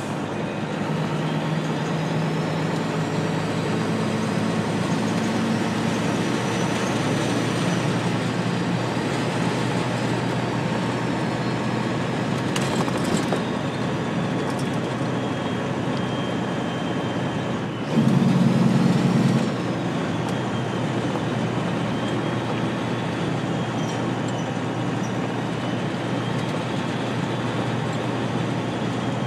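Cab noise of a loaded tractor-trailer on the road: a steady engine drone and road noise, with a thin whine that rises and falls in pitch. About two-thirds of the way through, a louder, harsher burst lasts a second and a half.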